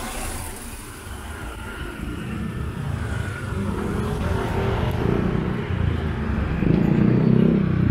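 A motor vehicle's engine getting steadily louder as it comes closer, loudest near the end.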